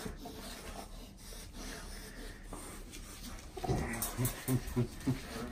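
Tug-of-war with a towel between a man's teeth and three golden retrievers: scuffling and rubbing, then, a little over halfway through, a quick run of five or six short, muffled grunts.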